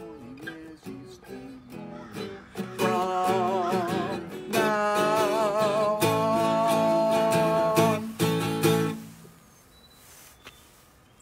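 An acoustic guitar is strummed while a man sings the last long held notes of a song, his voice wavering with vibrato. The music ends about nine seconds in.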